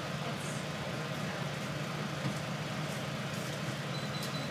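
Bus engine idling, a steady low hum heard from inside the cabin.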